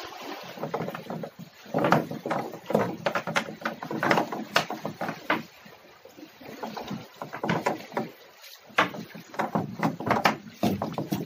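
Irregular knocks and splashes around a small boat, coming in clusters with a quieter lull about halfway through.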